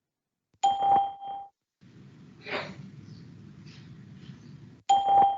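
Skype call-testing beep: an electronic tone sounds about half a second in, marking the start of the message recording, and sounds again about a second before the end. Between the beeps a low, steady hum with a faint rushing sound is heard, the background picked up during the recording interval.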